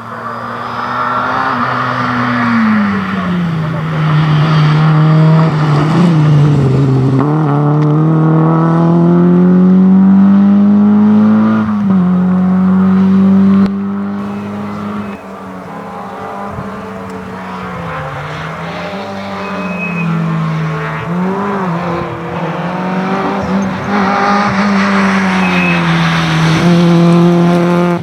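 Rally car engine running hard throughout, its pitch climbing and falling as the throttle opens and closes, with a sudden drop about twelve seconds in.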